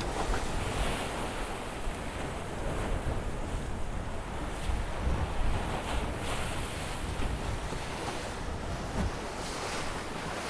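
Wind buffeting the microphone over the rush of sea water past the hull of a sailing trimaran under way, with a few swells of hiss as waves pass.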